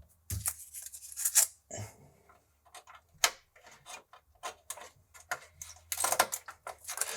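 Scattered clicks and taps with two brief scrapes, from small parts being handled and fitted on a computer's circuit board.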